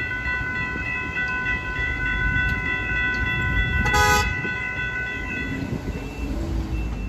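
Railroad crossing warning bells ringing continuously at a crossing held active with no train present, a sensor fault keeping the signals on; the bells stop about two-thirds of the way through. A short horn honk about four seconds in, over a low rumble of traffic and wind.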